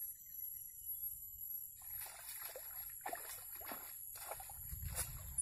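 Hooked striped snakehead thrashing at the water surface: a run of short, irregular splashes that begins about two seconds in.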